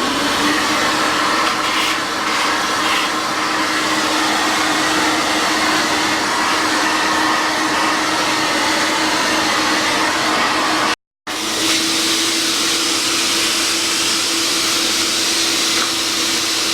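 Delvir SIM D 10S professional dry vacuum cleaner with a 1100 W motor, running steadily: an even rush of air with a steady hum underneath. The sound drops out completely for a split second about eleven seconds in, then runs on as before.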